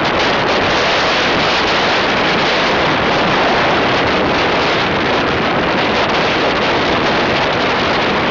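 Loud, steady wind rush buffeting the microphone of a moving motorbike at road speed. It is an even roar with no breaks, and it drowns out any engine note.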